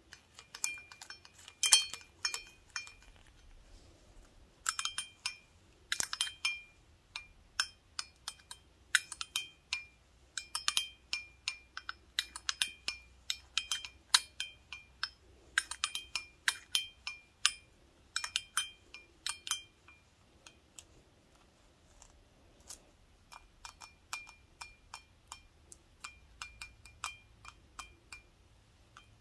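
Wooden toothpicks fixed in gloved fingertips tapping a large empty glass beer stein: many quick, light clinks in irregular flurries, each ringing briefly with a clear high tone. The tapping thins out to a few sparse clinks past the middle, then picks up again.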